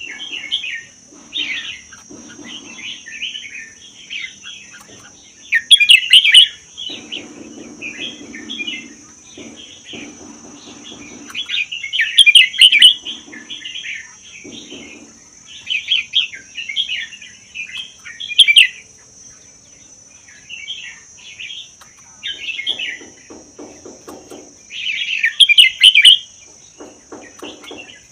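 Red-whiskered bulbul singing short, bubbly warbled phrases in quick succession, with brief gaps between them and several louder phrases standing out. A steady high-pitched hiss runs underneath.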